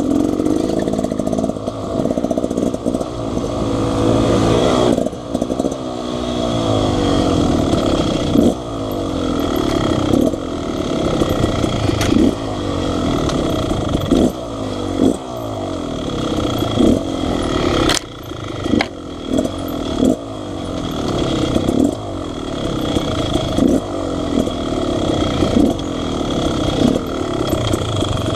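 Dirt bike engine running and revving as it is ridden, its pitch climbing over a second or two and dropping again, over and over, with a few sharp knocks.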